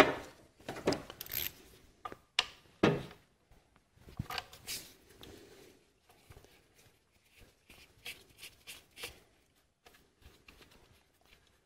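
A ratchet and socket at work on an ignition coil's 8 mm hold-down bolts: scattered faint clicks and knocks, with a short run of quick clicks about four seconds in and a few faint ticks later.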